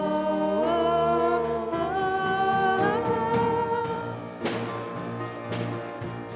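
Worship band music: sustained chords with voices holding notes, stepping up in pitch three times. About four and a half seconds in, drum and cymbal hits come in, building back toward the chorus.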